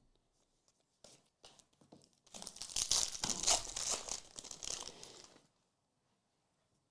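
Trading-card pack wrapper being crinkled and torn open by hand: a few small clicks, then about three seconds of crackly, high-pitched rustling.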